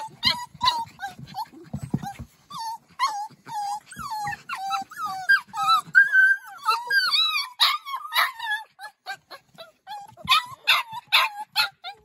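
A litter of eight-to-nine-week-old blue and red heeler and livestock guardian puppies whining and yipping, many short high cries overlapping with hardly a break.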